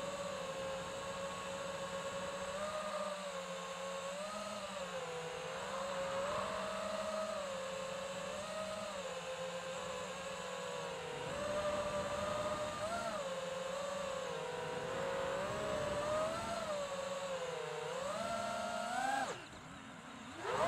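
FPV quadcopter's brushless motors whining, the pitch wavering up and down with the throttle. Near the end the whine drops away sharply for about a second, then climbs steeply back.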